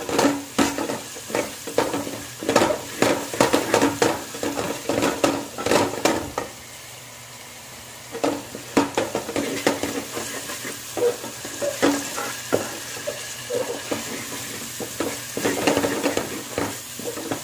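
Wooden spatula stirring and scraping chopped vegetables and spices in a coated pot, with the oil sizzling underneath. The stirring stops about six seconds in, leaving only a soft sizzle, and starts again about two seconds later.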